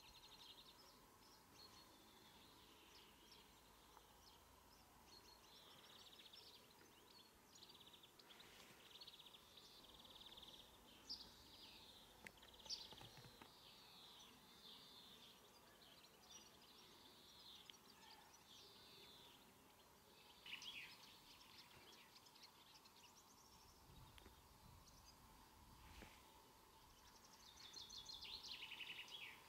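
Faint birdsong over near silence: small birds chirping and warbling in short phrases, busiest in the middle and again near the end.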